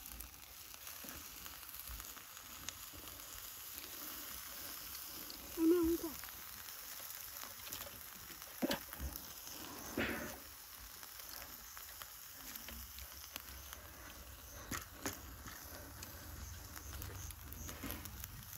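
Meat sizzling on a wire grill rack over glowing charcoal: a steady faint hiss with small ticks. A short pitched sound about six seconds in is the loudest moment, followed by a couple of soft knocks a few seconds later.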